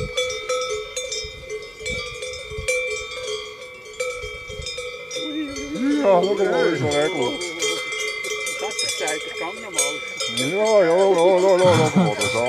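Cowbells on grazing cattle clanking and ringing steadily. A wavering, voice-like call rises over the bells twice, about halfway through and again near the end.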